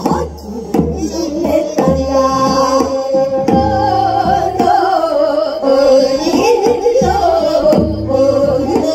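Women singing a Namdo folk song (minyo) with long, wavering held notes over a steady drum beat, heard through a stage PA.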